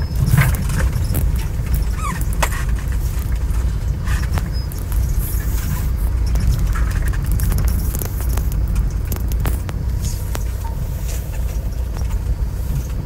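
Car moving slowly, heard inside the cabin: a steady low rumble with scattered light clicks and rattles.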